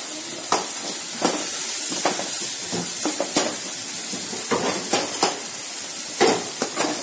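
Tomato masala with chilli powder sizzling in oil in a metal kadai, with a spoon scraping and clinking against the pan at irregular moments as it is stirred. The masala is being sautéed until the raw smell of the spices cooks off.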